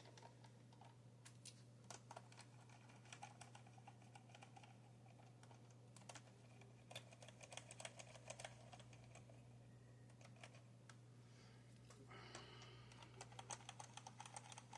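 Near silence with faint, scattered small clicks and taps of small plastic model-train parts being handled and fitted, busier near the end, over a steady low hum.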